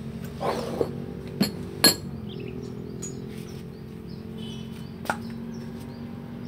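A few sharp metal clinks and knocks from engine parts and tools being handled, the loudest a ringing strike just under two seconds in, over a steady low hum.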